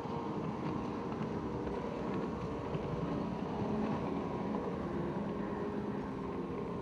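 Outboard motor of a Formula V racing powerboat running at speed, a steady drone, with low wind rumble on the microphone.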